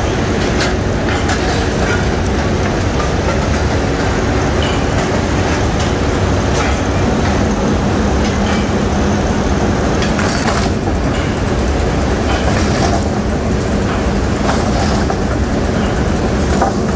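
Steel rolling mill running: a loud, steady rumble and drone from the roll stands and their drives, with scattered metallic clanks and rattles as red-hot bar is fed through the rolls.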